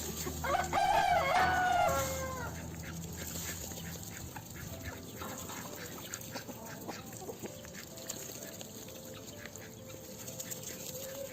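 Chickens clucking, with a rooster crowing once, loudly, for about two seconds shortly after the start, its call falling away at the end.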